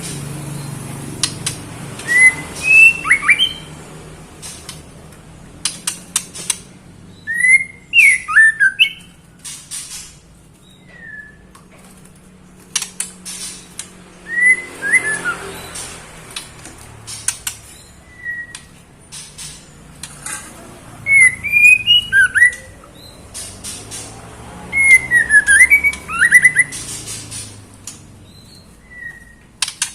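Female white-rumped shama calling in short phrases every few seconds: sharp whistled notes that sweep up and down, mixed with harsh rasping notes. This is the call of a hen in breeding condition summoning a male.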